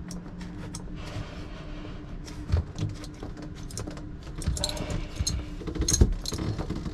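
Soft rustling, small clicks and taps of hands pressing a newly glued fabric headlining panel into its corners on a cabin ceiling, busiest near the end, over a faint steady hum.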